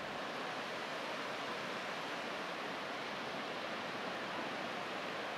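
Distant surf breaking on a beach: a steady, even rush of sea noise with no single wave standing out.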